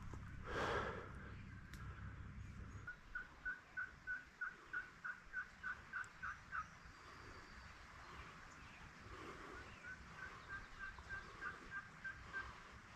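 Wild turkey yelping: a run of about fourteen short, even notes at about four a second, then after a pause a fainter second run near the end. A louder burst of sound comes about half a second in.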